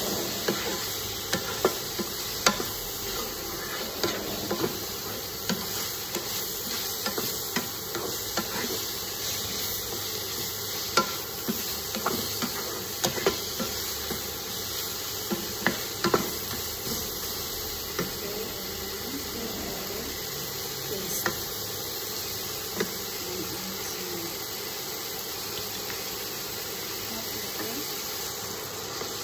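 Chicken pieces with onion and garlic frying in a nonstick wok with a steady sizzle, while a wooden spatula stirs them, giving irregular sharp knocks and scrapes against the pan.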